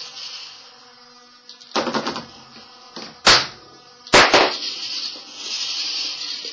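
Delta robot's motors whining in a high buzz as its arms move. There is a rattling knock about two seconds in, and loud sharp clicks from the mechanism at about three and four seconds in.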